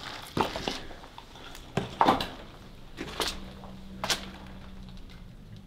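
Footsteps scuffing and knocking across a muddy, debris-strewn basement floor: about five short, irregular steps and knocks, with a faint steady low hum in the second half.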